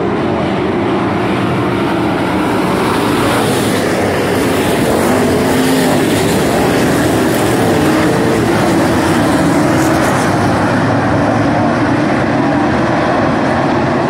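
A pack of street stock race cars' engines running hard on a dirt oval, a loud, continuous roar of many engines at once with pitches wavering up and down as they race through the turns.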